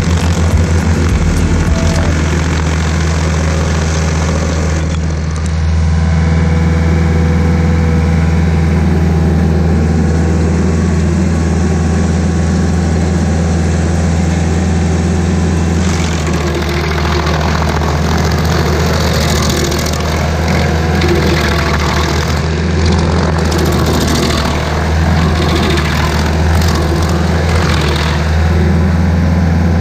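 Rayco RG50 stump grinder's engine running at a steady speed, with a rougher, noisier sound joining in from about halfway through.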